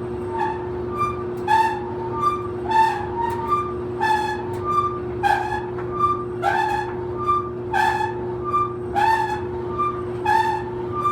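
Old clothes dryer running with a loud, high-pitched squeak about once every second and a quarter and a fainter, higher chirp between squeaks, over a steady motor hum.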